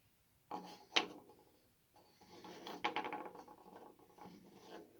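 A wooden cabinet door fitted to a gutted microwave being handled: a soft knock, a sharp click about a second in, then a few seconds of quick clicking and creaking.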